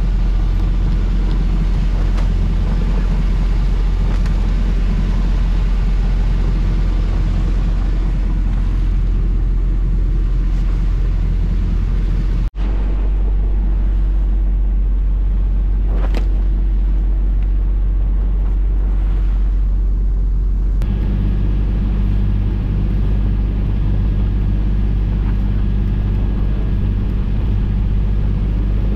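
Small boat's inboard diesel engine, run on biodiesel, motoring steadily under way. It breaks off for an instant about twelve seconds in. Its hum grows deeper and fuller about two-thirds of the way through.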